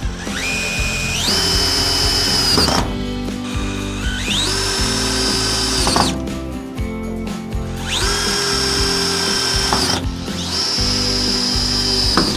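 Power drill driving screws into wood, four times: each run climbs in pitch as the motor speeds up, holds steady for about two seconds, then stops. Background music plays underneath.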